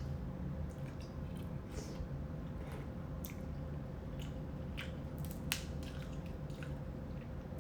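Eating crab: scattered small wet clicks and cracks of shell being picked apart and chewing, the sharpest click about five and a half seconds in, over a steady low hum.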